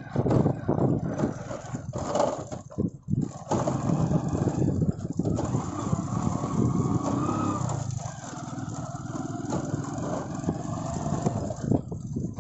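A motor engine running steadily, its pitch rising slightly partway through.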